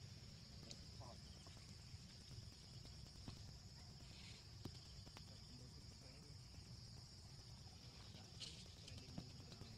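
Near silence: a faint, steady high-pitched insect drone over a low background rumble, with a few faint ticks.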